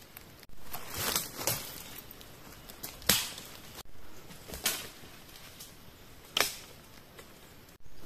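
Rubber-band slingshot being shot up into the trees: three sharp snaps a second or two apart, the first the loudest.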